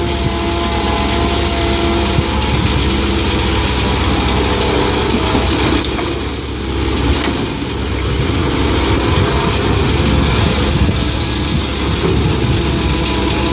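Komatsu PC130-8 excavator's diesel engine running steadily with a constant whine over it, easing off briefly about halfway through.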